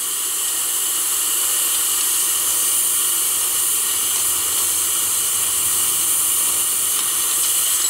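Compressed air hissing steadily from leaking steam-pipe unions inside the smoke box of a 5-inch gauge model steam locomotive under an air test with the regulator open. The leaks spoil the vacuum from the exhaust, the cause of the engine's poor steaming.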